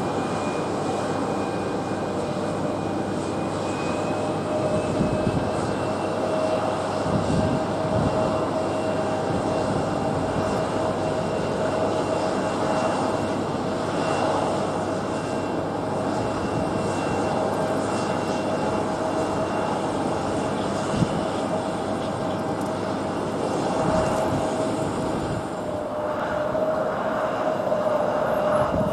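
Turbofan engines of landing jet airliners: a steady roar with a high whine held at an even pitch. There is one brief sharp knock about two-thirds through.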